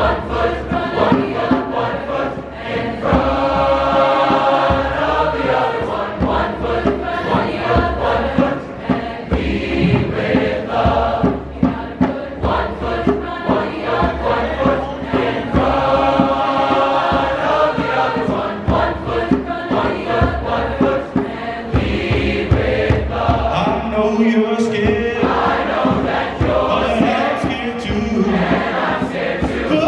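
Large mixed choir singing in harmony, with long held chords a few seconds in and again midway.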